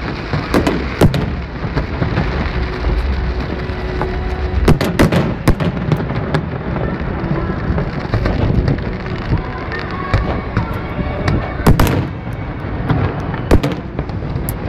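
Fireworks display: aerial shells bursting with sharp bangs and crackles, a quick cluster about five seconds in and another about twelve seconds in, over a steady background din.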